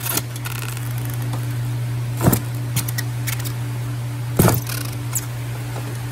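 Hard shells of live lobsters knocking against a styrofoam cooler and each other as they are packed in by hand: three sharp clicks, at the start, about two seconds in and about four and a half seconds in. A steady low hum runs underneath.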